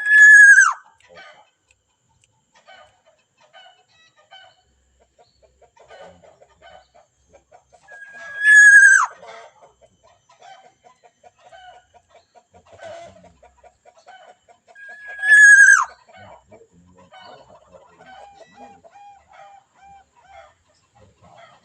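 Loud bird call, a high held note that drops sharply at the end, about a second long, repeated three times about seven seconds apart. Fainter rapid chirping runs underneath.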